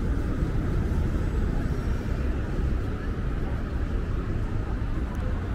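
Steady city street traffic: cars idling and moving through a crossing, a continuous low rumble.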